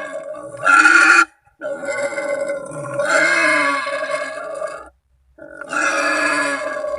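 Wild boar squealing: long, drawn-out pitched calls, one after another with brief breaks, like a boar calling to others of its kind.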